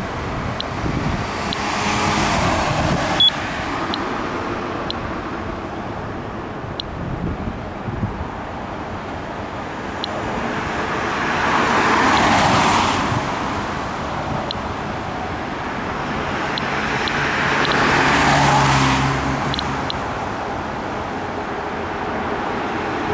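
Cars passing on the road over steady traffic noise, three slow swells as they go by, the loudest about twelve and eighteen seconds in. Scattered short high clicks from an Inspector+ Geiger counter sound each time it counts radiation.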